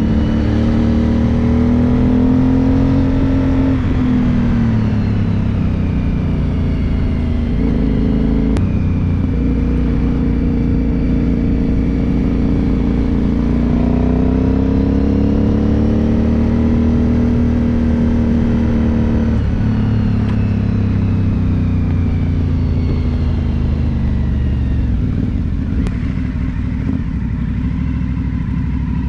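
Onboard sound of an Aprilia Dorsoduro 750's V-twin engine under way, the engine note rising under throttle and falling back several times. There are sharp drops in pitch about 4 seconds and 19 seconds in, as on a gear change or closing the throttle.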